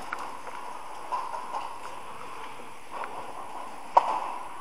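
A few scattered light knocks or clicks over a faint steady background, the sharpest one near the end.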